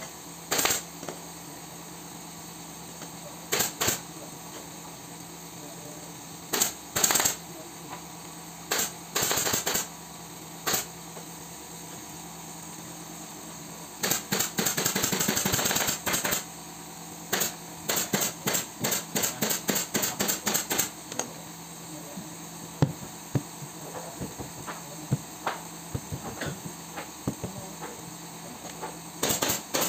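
Pneumatic upholstery staple gun firing staples to fasten fabric on a sofa seat cushion: sharp single shots every few seconds at first, a rapid run of shots about halfway through, then a quick series of shots followed by scattered single ones.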